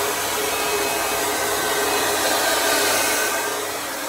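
Handheld hair dryer running steadily: a loud rush of blown air over a steady motor hum, dipping slightly in level near the end.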